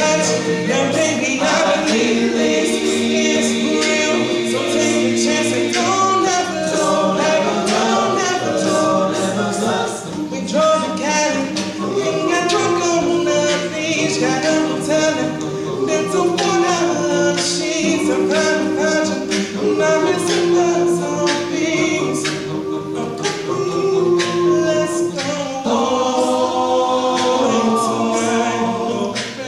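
Male a cappella group singing, a lead voice carrying the melody over backing singers holding sustained chords.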